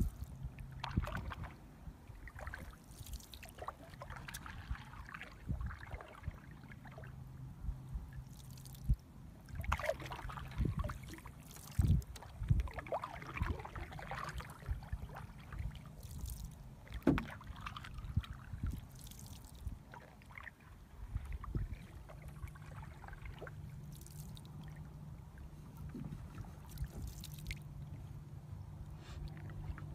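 Wooden canoe paddle dipping and pulling through calm lake water, with soft splashes and trickles and occasional knocks against the canoe's hull.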